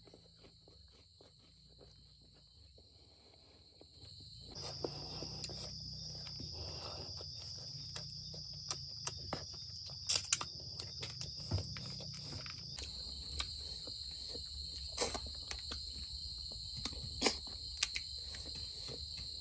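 Almost silent for the first few seconds, then a steady high insect trill in the background with scattered short clicks and smacks of someone eating cooked river snails by hand, sucking the meat out of the shells.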